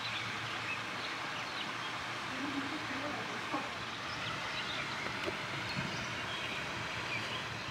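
Steady outdoor background hiss with faint, indistinct voices in it.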